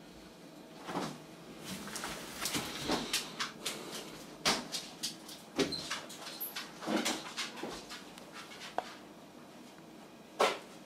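Newborn English Springer Spaniel puppies giving a few small squeaks and grunts, amid scattered short clicks and rustles.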